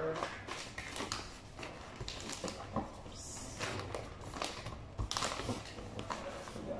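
Wrapping paper rustling and crinkling as it is folded and pressed around a large cardboard carton, with irregular light knocks from handling the box.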